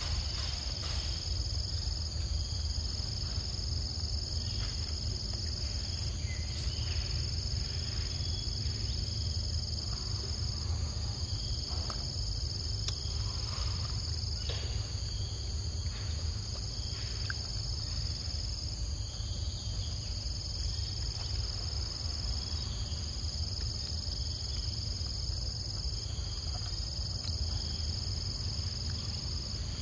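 Insects shrilling in a steady high chorus that breaks and starts again about every two and a half seconds, over a constant low rumble.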